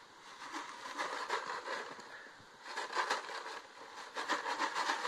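White plastic jug crackling and rattling while a horse holds it in its mouth: a rapid, irregular run of crinkly clicks, busiest around the middle and near the end.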